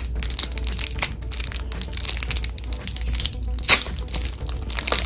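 Stiff plastic packaging crinkling and crackling as it is squeezed and handled, with one sharp snap about three and a half seconds in.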